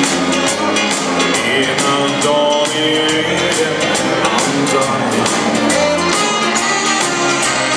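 Dansband music played live by a band, with a steady drum beat under held melodic notes.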